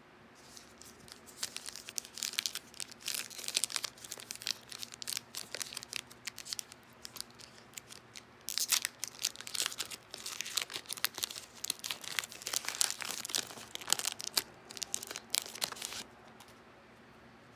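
Foil wrapper of a Panini Revolution basketball card pack being torn open and crinkled by hand, a dense run of sharp crackles with a short lull midway, stopping about a second and a half before the end.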